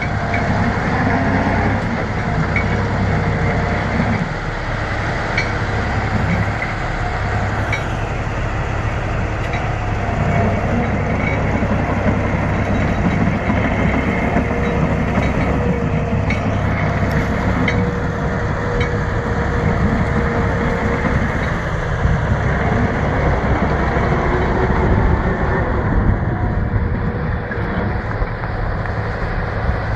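Bulldozer running steadily, with its engine rumble and light clicks repeating about every two seconds.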